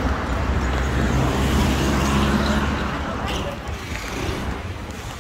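Street traffic with a motor vehicle's engine running close by. The engine is loud for about the first three seconds, then fades into general road noise.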